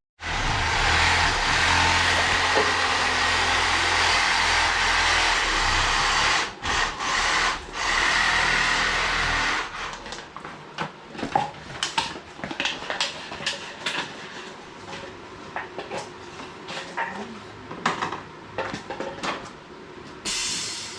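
Reciprocating saw (Sawzall) running and cutting for about ten seconds, with a short break partway through. It stops suddenly, and scattered knocks and clicks of handling follow.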